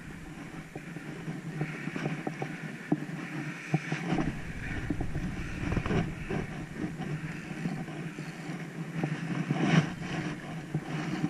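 Scattered clicks and knocks of a fishing rod and spinning reel being handled, over a steady low hum.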